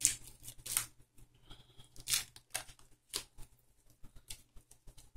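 Wrapper being torn and picked off a deck of game cards by hand, in a series of short rips and crinkles, the loudest right at the start.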